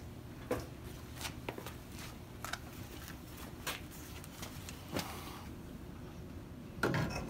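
Handling noise from a chrome tail light bezel being picked up and fitted into a sheet-metal tail panel: about half a dozen light, scattered clicks and taps.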